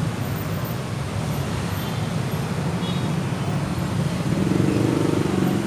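Road traffic running steadily, with one vehicle passing louder about four seconds in.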